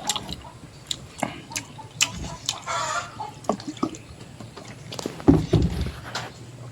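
Close-miked eating sounds: chewing and lip-smacking, heard as a string of sharp, irregular wet clicks.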